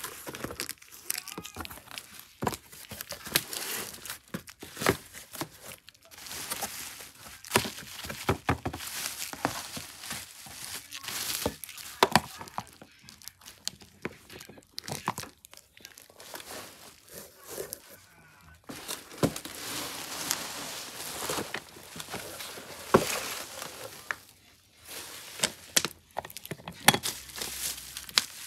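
Bubble wrap and cardboard packaging crinkling and rustling while being handled and pulled open, with frequent sharp crackles and small knocks all through.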